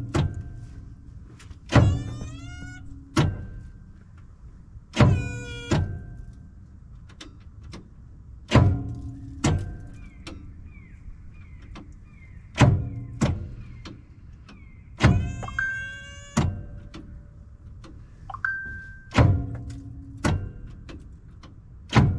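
The starter motor on an old GMC 401 V6 is bumped over and over against an engine stuck from years of sitting. About a dozen sharp clunks come one to three seconds apart, a few of them followed by a brief rising whine, and the engine does not turn over.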